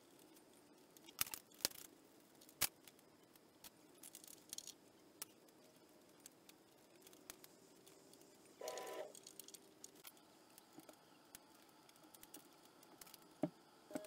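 Sparse light clicks, taps and rattles of hands fitting new toothed timing belts over the cam pulleys and tensioners of a Ducati 1098S engine, with a short louder scrape about nine seconds in.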